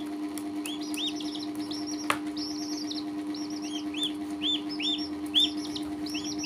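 Baby chicks and a duckling peeping in quick runs of short rising-and-falling calls, over a steady low hum, with one sharp click about two seconds in.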